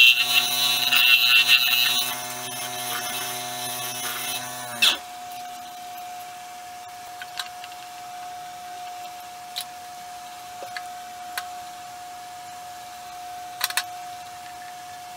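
Nova Galaxi DVR wood lathe running, with a turning tool hissing as it cuts into the spinning cedar-and-resin bowl for about two seconds. Then only the lathe's steady motor hum goes on until it stops abruptly about five seconds in, leaving a faint steady tone and a few scattered light clicks.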